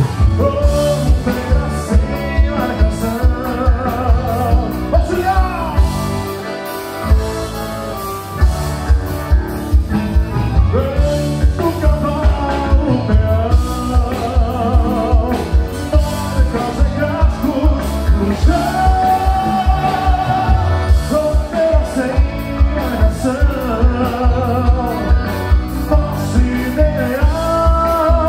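Live southern Brazilian gaúcho music: a singer with a band over a steady drum beat, the beat dropping out briefly about six seconds in before coming back.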